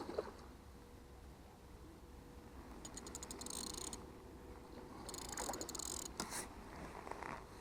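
Fishing reel's drag ticking in two short bursts of rapid clicks, about a second each, as a hooked carp pulls line off the spool.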